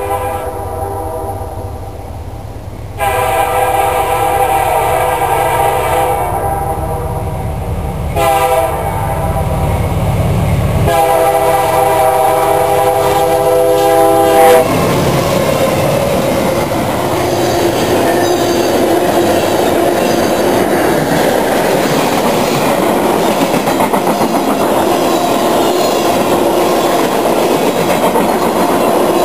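Freight train's full-cowl diesel locomotive sounding its air horn for the grade crossing: two long blasts, a short one and a long one, over the low rumble of the engine. Then, about halfway through, the train passes close by and the horn gives way to the steady rolling and clicking of wheels over the rails.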